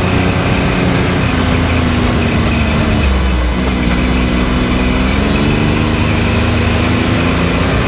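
Can-Am Maverick X3 side-by-side's turbocharged three-cylinder engine running on the trail, its pitch dropping about three seconds in and then climbing again as the throttle changes, with a steady high whine above it.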